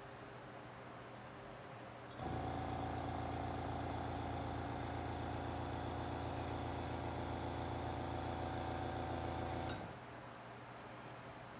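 A small airbrush air compressor switches on with a click about two seconds in, runs with a steady hum for about eight seconds, then clicks off.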